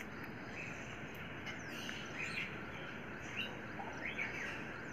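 Birds chirping: scattered short chirps and a couple of quick falling whistles over steady outdoor background noise.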